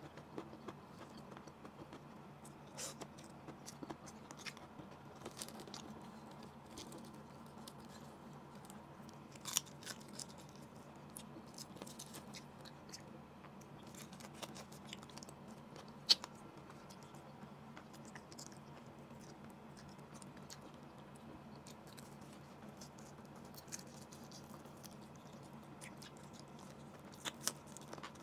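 Close-miked eating: soft chewing and mouth sounds as grilled fish and rice are eaten, with scattered sharp clicks and taps of fingers and spoon, a few of them louder. A faint steady hum runs underneath.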